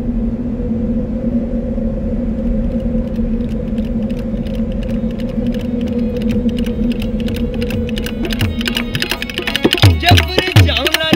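Instrumental music: a steady low drone with light clicking percussion building over it, then hand drums come in about ten seconds in with rapid bass strokes that bend in pitch.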